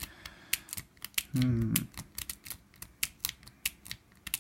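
Metal lock-picking rake clicking rapidly and irregularly over the wafers of a wafer lock as it is raked under light tension, with a brief hum from a voice about a second and a half in.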